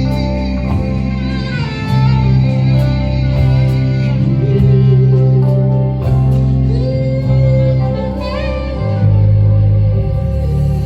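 Live band playing an instrumental passage of a song: steady bass under long, held melody notes.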